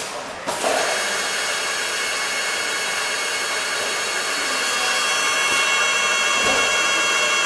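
Commutator turning machine running: an armature spins in the spindle while the tool cuts its copper commutator. It makes a steady whine with several high tones over a hiss, starting about half a second in.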